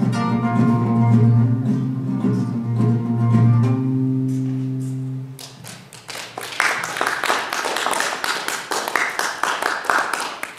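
Acoustic guitar ending a piece, its last notes ringing and fading out about five seconds in; then an audience applauds for about four seconds.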